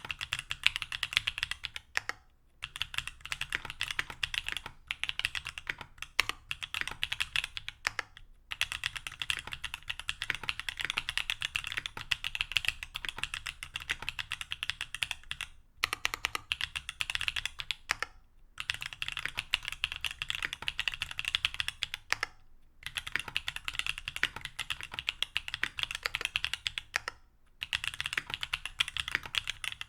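Mechanical keyboard with stock TTC Holy Panda 65 g tactile switches, an aluminium plate and GMK keycaps, typed on in fast runs of keystrokes broken by brief pauses every few seconds.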